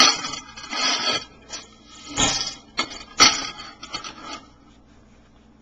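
Unpopped popcorn kernels rattling and sliding across an oiled steel pan as it is swirled, in a run of swishes about once a second that stops about four and a half seconds in.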